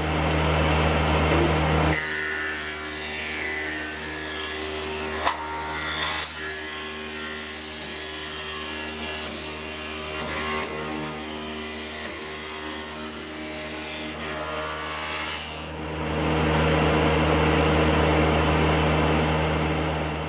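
Industrial woodworking machine running with a steady motor hum. From about two seconds in until a few seconds before the end, wood-cutting noise is added over the hum.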